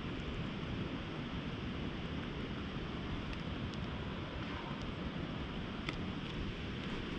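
Wind buffeting an action camera's microphone: a steady low rumble of noise, with a few faint ticks now and then.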